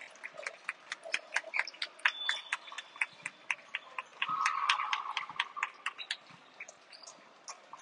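Volleyball players slapping hands down the pre-match handshake line, mixed with sneakers squeaking on the gym floor: a rapid, irregular run of short sharp slaps and squeaks, several a second.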